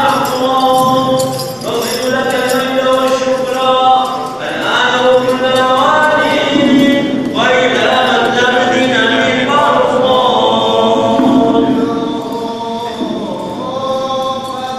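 Voices singing a slow liturgical church chant, in phrases a few seconds long.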